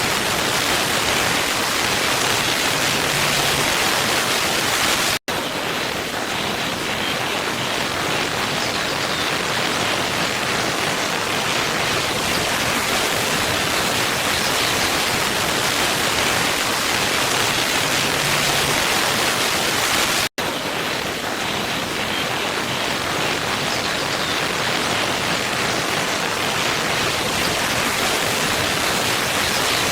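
Steady rushing of a waterfall, an even wash of falling water with no pauses except two split-second dropouts, about 5 and 20 seconds in, where the loop of the recording is cut.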